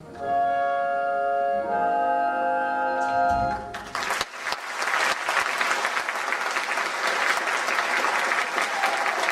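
A pit orchestra holds sustained chords, shifting to a new chord partway, with a low hit just before the music cuts off about four seconds in. A theatre audience then applauds.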